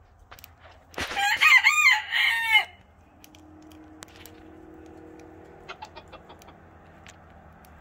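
A rooster crowing once: a cock-a-doodle-doo of several syllables, about a second and a half long, starting about a second in.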